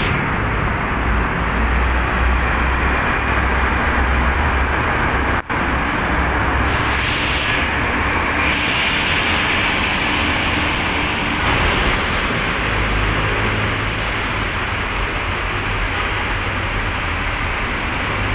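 Busy city road traffic: engines of trucks, cars and motorcycles running as they pass, a steady mix of engine rumble and tyre noise. There is a brief dropout about five and a half seconds in.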